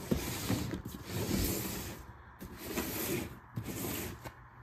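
Cardboard product boxes being handled and slid against each other: a rustling, scraping hiss with a few light knocks.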